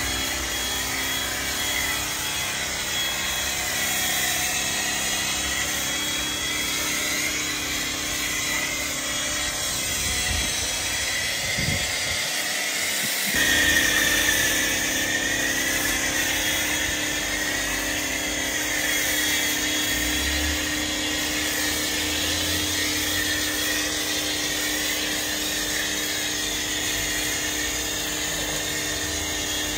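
A small electric motor running steadily, with a high whine that wavers slightly in pitch and a low hum beneath it; the sound changes abruptly about 13 seconds in.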